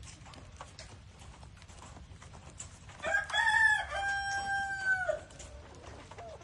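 Rooster crowing once, about three seconds in: a short first note then a long held note that drops away at the end. Faint scattered ticks around it.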